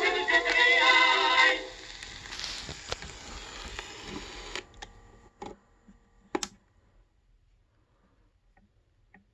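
Tenor and baritone duet singing from an old 78 rpm shellac record, heard through a small suitcase turntable's built-in speakers, ending about a second and a half in. Record surface hiss follows, then two sharp clicks and near silence.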